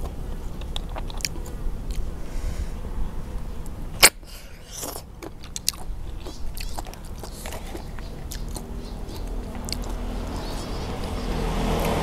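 Mouth sounds of eating river snails: lips sucking the meat out of the shells and chewing, with many small clicks of shell and one sharp click about four seconds in.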